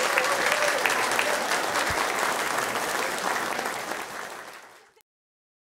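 Audience applauding, fading out over the last second and cutting to silence about five seconds in.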